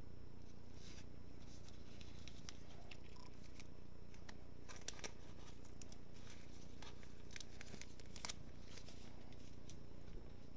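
Quiet room with a steady low hum, broken by a few faint, scattered clicks and light rustles.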